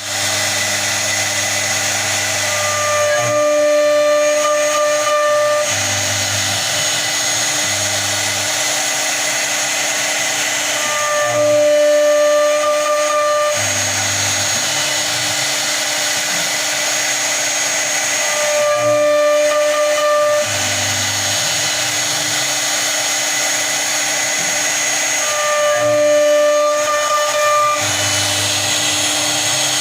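CNC router running while cutting a door design: steady spindle and motor whine with low tones that shift as the machine moves. A higher whine and a slightly louder passage return about every seven and a half seconds as the cutting pattern repeats.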